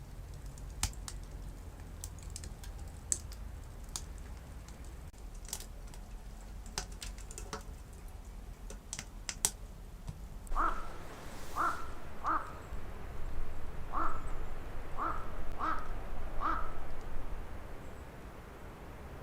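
A crow cawing seven times in a loose series over about six seconds. Before the calls come scattered sharp crackling clicks.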